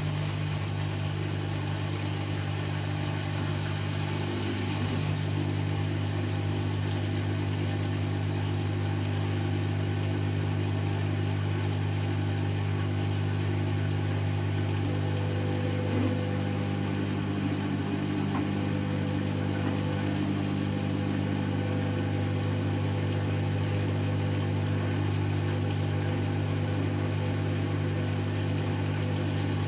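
Servis Automatic M3008B washing machine on its 800 rpm final spin: the drum spinning at a steady high speed with a constant motor hum.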